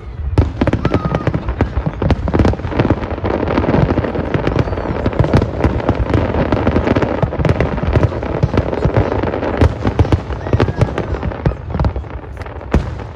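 Fireworks going off in a rapid, dense barrage of bangs and crackling pops, thickest through the middle of the stretch.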